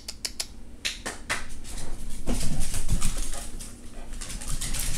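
Two dogs, a dachshund and a beagle mix, playing on a hardwood floor. A scatter of sharp clicks comes in the first second or so, then a louder stretch of dog noises about two seconds in.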